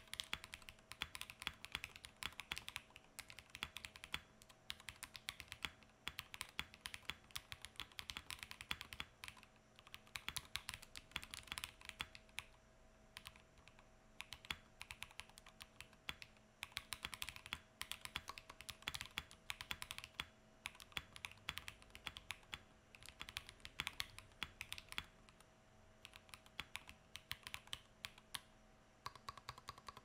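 Typing on a custom mechanical keyboard fitted with lubed Durock POM linear switches on a POM plate: a quick stream of key strokes in runs, with a couple of short lulls.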